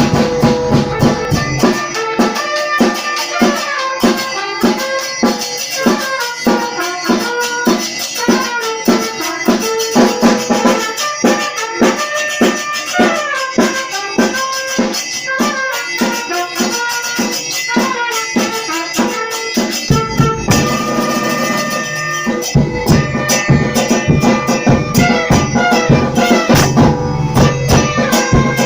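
Batucada percussion group rehearsing a cumbia: a steady beat of drums and shakers under a stepping melody. The low end fills out about twenty seconds in.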